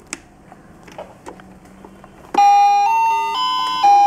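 A few faint clicks from a baby walker's toy activity tray, then about two seconds in the tray's electronic tune starts loud, a beeping chime melody changing note about every half second.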